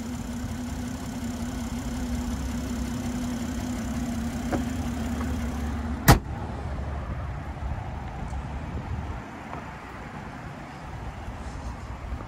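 A steady hum from the BMW 840i's open engine bay, then the hood slammed shut with one sharp bang about six seconds in. After the bang only a quieter low rumble remains.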